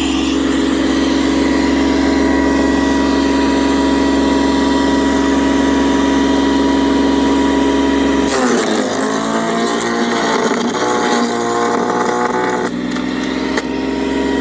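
Sun Joe CJ602E 15-amp electric wood chipper/shredder running with a steady hum. About eight seconds in, its pitch drops and wavers for several seconds under load as a branch is fed through and chipped. It then returns to the steady hum, with a single sharp crack near the end.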